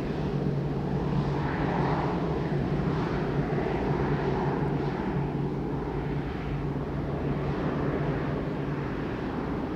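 Boeing 787-9's Rolls-Royce Trent 1000 turbofans running at taxi power as the airliner rolls past: a steady low hum under broad jet noise, with a slow, sweeping swish in the upper noise as it passes.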